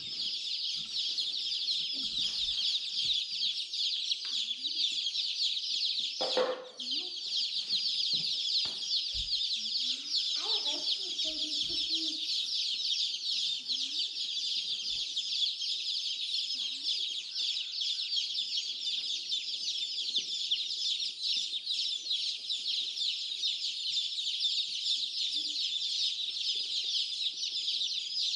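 Many baby chicks peeping together in a dense, continuous high-pitched chorus, with a single bump about six and a half seconds in.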